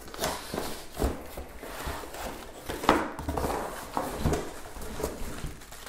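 Handling noise from a bare DeWalt DCS331B 20V cordless jigsaw being turned over in the hands: irregular light knocks and clicks of its plastic housing. The motor is not running; no battery is fitted.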